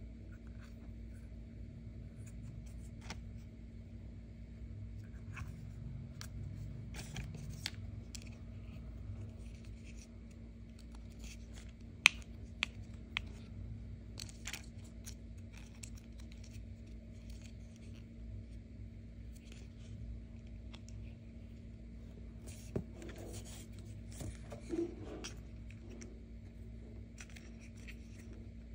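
Hands handling hard plastic action figures: scattered light clicks, taps and scrapes of plastic against plastic, with a sharper click about twelve seconds in.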